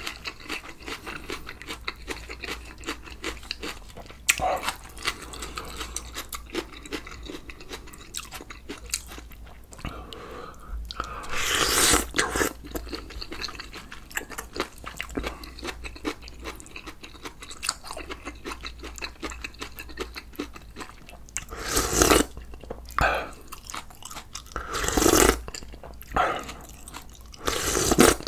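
A person chewing and crunching a meal of kimchi, raw onion, chillies and rice with tripe soup, recorded close up for eating ASMR. There is steady wet chewing with many small crunches, and a few louder bursts about twelve seconds in and several times near the end.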